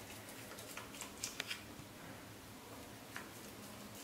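Knife cutting through set coconut burfi in a stainless steel tray: faint scraping with light clicks of the blade, several about a second in and one more near the end.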